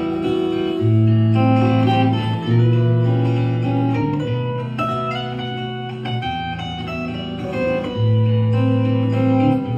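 Guitar playing an instrumental melody over long held low notes.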